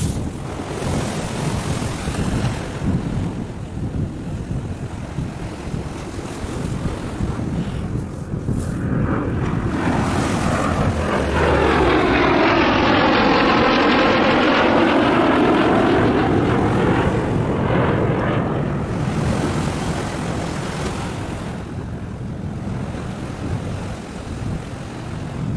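An aircraft flying over, growing louder for several seconds to a peak about halfway through, with a sweeping, phasing tone as it passes, then fading away. Wind buffets the microphone throughout.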